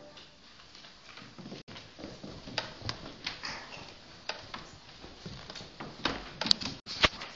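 Scattered knocks, clicks and shuffling of children moving about and stepping on a wooden floor, with a few sharper knocks near the end. The sound cuts out for an instant twice.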